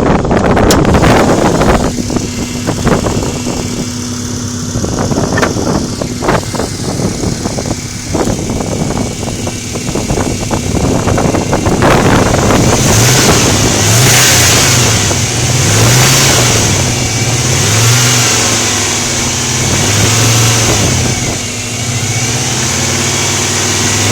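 Subaru car engine being revved, first with irregular knocks over its running, then blipped up and down about every two seconds in the second half. The owner's complaint is a ticking noise at 2000–3000 rpm.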